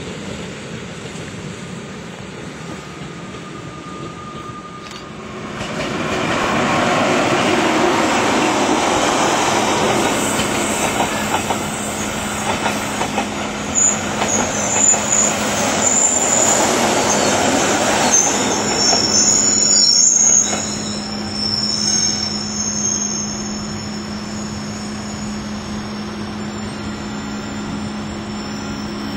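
Rhaetian Railway passenger train passing close by, its coaches rumbling over the rails with some clickety-clack. Wheels squeal high through the middle stretch, and a steady low hum follows in the later part.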